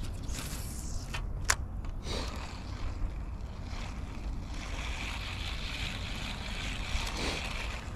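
Wind rumbling on the microphone, with a sharp click about a second and a half in and a steady hiss through the second half.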